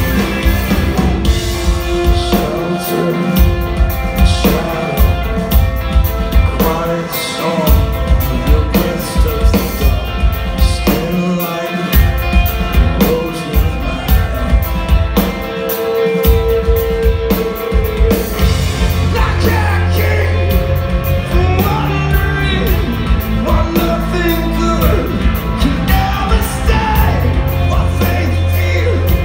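Rock band playing live: electric guitars, bass and drum kit with a lead vocal sung over them, heard loud from the audience floor. The bass and drums break off briefly a few times in the first half, then come in fuller for the last third.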